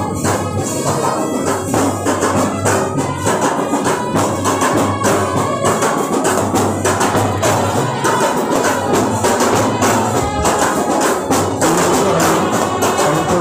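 Procession band music, loud, with a rapid, steady percussion beat over sustained pitched notes.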